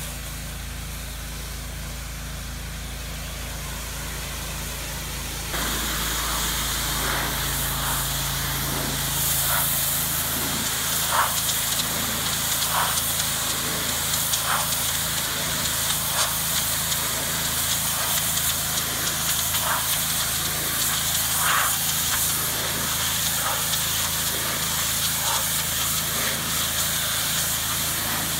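Pressure-washer spray hissing as it rinses cedar shingles, over the steady hum of the pressure washer's engine. About five seconds in the spray gets much louder and closer, with scattered sharp spatters as it hits the wood.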